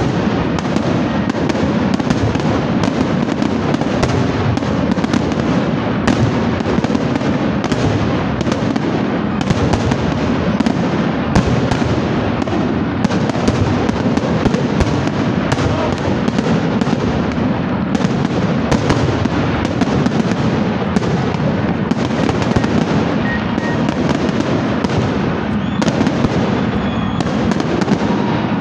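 Aerial fireworks display: a dense, continuous barrage of shells bursting, many bangs overlapping without a pause.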